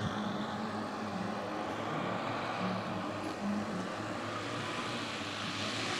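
Twelve small 10 cc O.S. four-stroke model engines on a large RC Dornier Do X scale flying boat, running together as a steady drone while the model flies a low pass.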